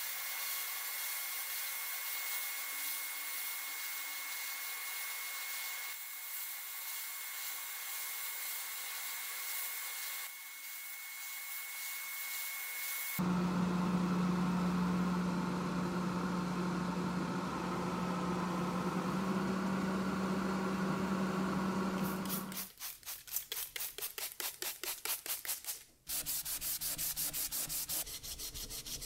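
Sandblast nozzle blasting abrasive in a blast cabinet, a steady hiss with a thin whistle. After about 13 s it changes to a handheld electric paint sprayer running, a louder hiss over a steady low hum that stops about 22 s in. It then changes to hand sanding with a sanding sponge, quick back-and-forth rubbing strokes.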